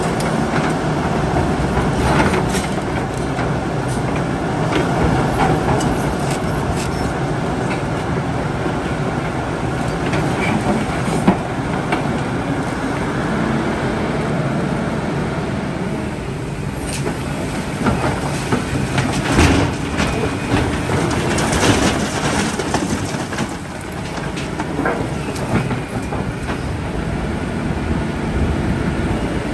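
Heavy earthmoving machinery working: a large diesel engine running steadily under load, with sharp metallic clanks and knocks now and then.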